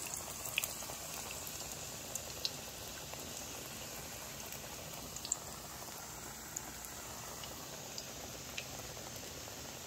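Shami kababs sizzling as they shallow-fry in hot oil in a skillet: a steady hiss with scattered sharp pops and crackles from the oil.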